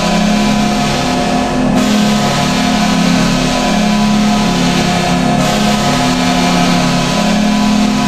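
Buffalo Sabres arena goal horn sounding one long, loud, sustained low chord. Its lowest notes waver as it holds.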